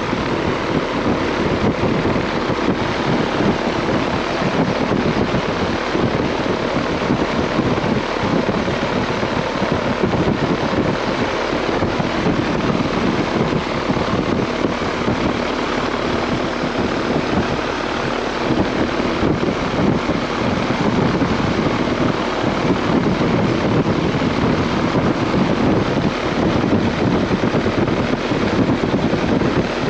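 Outdoor air-conditioner condenser unit running: a steady rush of air from its fan blowing up through the top grille past the microphone, with the compressor running under it.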